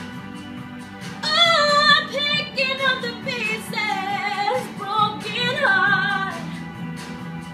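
A woman singing a slow, held vocal line with vibrato over a backing track. The voice comes in about a second in and drops out near the end, leaving the accompaniment alone.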